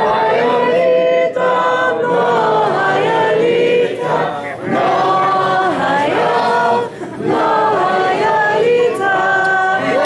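A roomful of party guests singing together in chorus, men's and women's voices, holding long notes.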